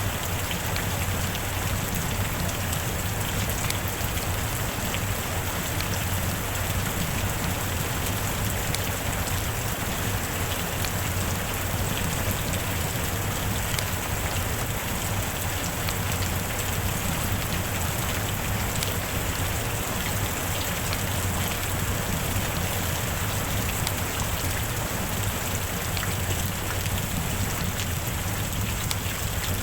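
Rain falling steadily, a dense patter of drops that holds even with no breaks or changes.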